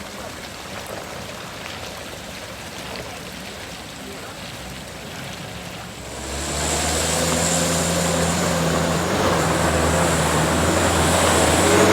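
A heavy truck's engine comes up about halfway through and runs steadily, a low hum with a thin high whine above it.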